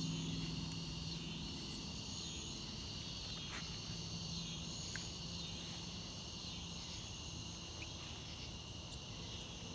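Chorus of insects such as crickets, a steady high-pitched trill that swells and eases in slow waves.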